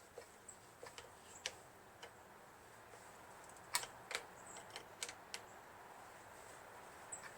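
Scattered small metallic clicks and taps of hand work as a hose clamp is fitted around a piston's rings to compress them, with a few sharper clicks in the middle.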